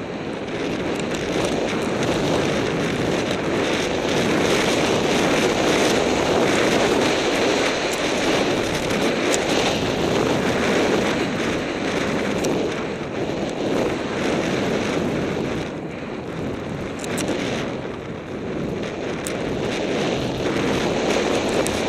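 Wind rushing over the microphone and skis running through snow during a fast ski descent, a loud steady rush that eases briefly a couple of times late on.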